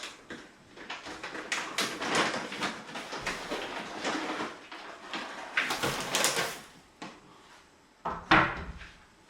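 Handling noise: a run of small clicks, knocks and rustling as things are moved about, with one louder knock about eight seconds in.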